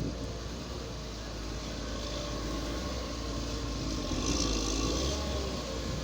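Heavy construction machinery engine running steadily with a low rumble, briefly louder with a hiss about four seconds in.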